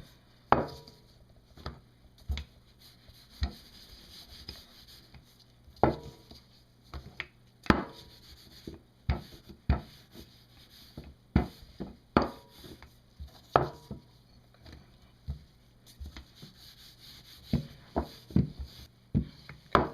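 Rolling pin rolling out folded pastry dough on a work surface, with irregular sharp knocks, about one every half second to second, as the pin strikes and rolls across the board.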